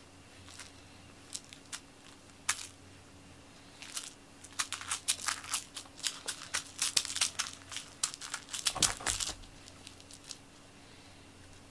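Crinkling and crackling of a plastic cat-teaser wand being handled and shaken close by. A few single crackles come first, then a dense run from about four seconds in to about nine and a half, with a low thump near the end of the run.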